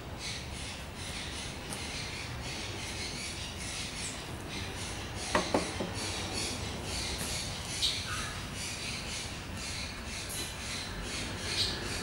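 Two glasses set down on a wooden table, two quick ringing clinks about five seconds in, over a steady, rhythmic high rasping in the background.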